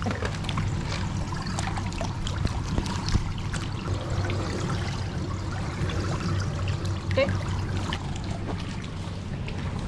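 Pool water trickling and lapping, with small splashes as a harbor seal swims and surfaces, over a steady low hum.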